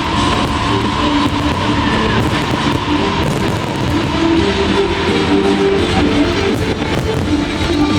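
Music with guitar, loud and continuous, with held notes over a dense noisy background.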